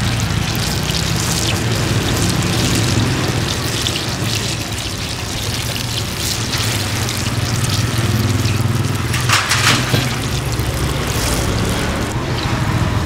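Hot oil sizzling and crackling as banana fritters deep-fry, over a steady low hum. A louder burst of crackling comes about two-thirds of the way through.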